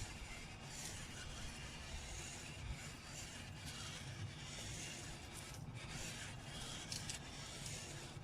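Small solar-powered robot toy walking, its plastic legs rubbing and scraping on the ground, with faint scratchy ticks over a steady low rumble.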